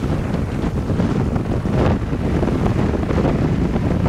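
Wind buffeting a microphone moving at cycling speed: a loud, irregular low rumble, with a few faint ticks.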